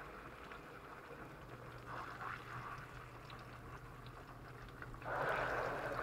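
Ripe plantain slices sizzling gently in hot frying oil, with scattered small pops. The sizzle gets louder about five seconds in as another slice goes into the oil.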